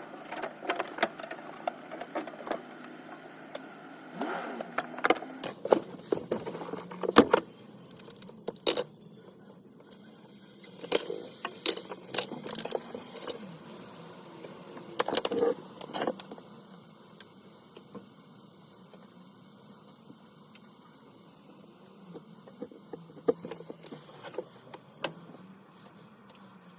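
Scattered clicks, knocks and rattles, as of tools and parts being handled, over a faint steady hum. The clicks come thickest in the first half and again briefly near the end.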